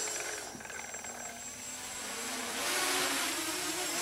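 A small 280mm racing quadcopter's motors and oversized props buzzing in flight. The sound fades as the drone climbs high, then grows louder again as it comes back down.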